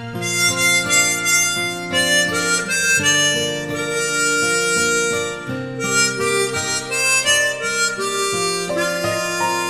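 Harmonica playing a slow melody in held notes.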